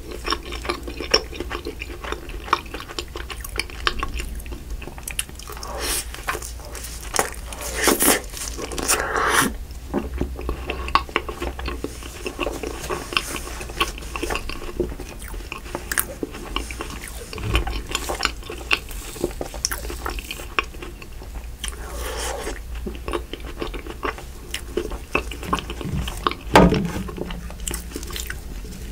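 Close-miked chewing of a mouthful of creme brulee cookie ice cream: wet mouth and lip smacks with scattered sharp clicks and crunches. There are louder bursts of chewing now and then.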